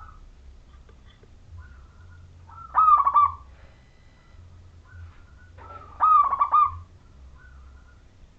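Zebra dove (perkutut) singing its cooing song: two loud phrases of quick rolling notes, about three seconds apart. Fainter short calls come in between.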